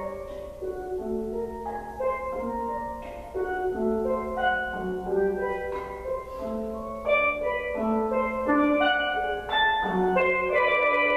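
Double seconds steel pan played solo with mallets: a continuous run of struck notes that ring and overlap, often two at once, growing denser and louder near the end.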